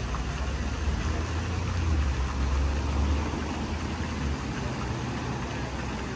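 Steady splashing of fountain jets into their stone basins, under a low rumble of road traffic that swells for a few seconds in the middle.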